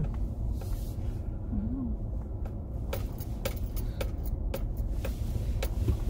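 Steady low rumble of a car driving, heard from inside the cabin, with a scatter of sharp ticks in the second half.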